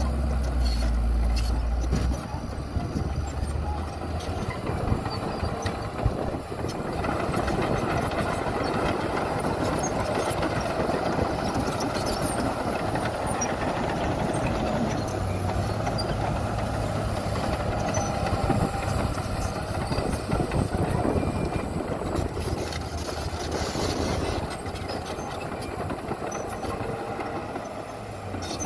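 Heavy diesel earthmoving machinery running steadily, with a deep low engine drone that strengthens near the start and again midway, and scattered knocks and clanks.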